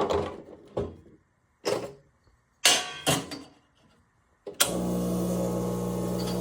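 Coffee equipment being handled with several sharp knocks and clatters. About four and a half seconds in, an electric motor or pump switches on abruptly and runs with a steady hum.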